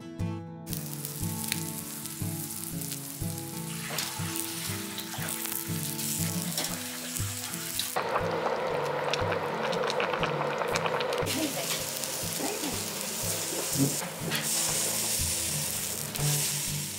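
Food sizzling and crackling as it cooks, a hotpot simmering and crab legs grilling on a wire rack, with a denser stretch from about eight to eleven seconds in. Quiet acoustic guitar music runs underneath.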